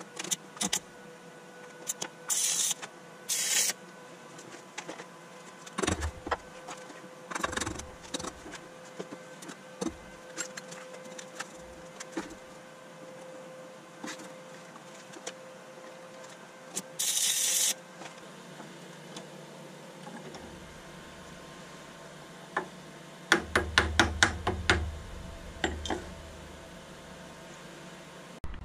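Hand-tool work on a steel plate at a workbench: a few short scraping strokes on the metal and scattered knocks of tools against the plate and bench. Near the end comes a quick run of clicks and clatter.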